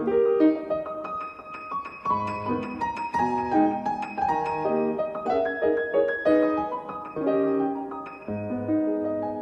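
Background piano music: a slow melody of held notes over sustained chords, with deeper bass notes joining about two seconds in and again near the end.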